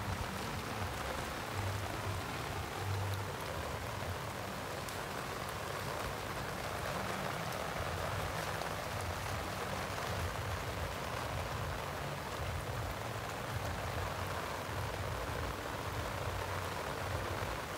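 Steady rain falling: an even hiss of raindrops with many fine ticks, over an uneven low rumble.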